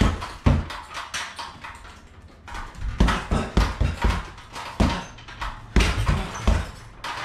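Punches landing on a hanging heavy bag: irregular combinations of sharp thuds, two to four quick hits at a time, with a pause of about a second after the first few.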